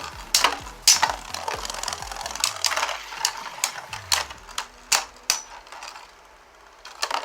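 Two Beyblade spinning tops, a 3D-printed War Smite and a Dynamite Belial, spinning and scraping in a plastic stadium with repeated sharp clacks as they collide. The clashes thin out and it goes quieter about six seconds in.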